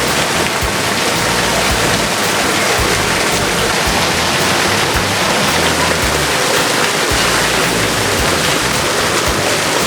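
Steady, loud rush of water pouring down from a pool water feature and splashing onto the water and deck below.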